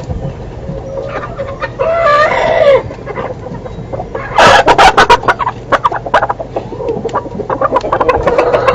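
Chickens clucking, with one longer pitched call that falls away at its end about two seconds in. A burst of loud, sharp sounds comes about four and a half seconds in, followed by continued short repeated clucks.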